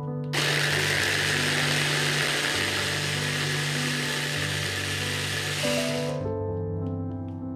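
Braun electric hand blender with a chopper bowl running for about six seconds, whirring as it grinds parsley, walnuts and water into a paste; it starts just after the beginning and cuts off about six seconds in. Background music plays throughout.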